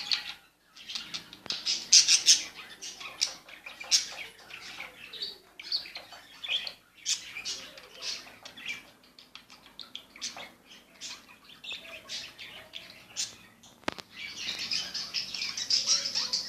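Budgerigars chirping and chattering in short, high calls, turning into denser continuous chatter near the end, with one sharp click shortly before that.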